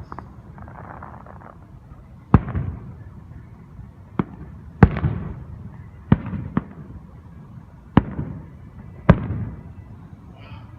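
Fireworks going off: about seven sharp bangs at irregular intervals, each followed by a crackling, echoing tail.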